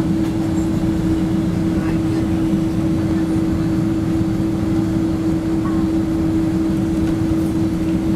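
Steady jet engine and cabin hum inside a Boeing 767-300ER rolling on the ground: an even, low drone with one strong held tone, unchanged throughout.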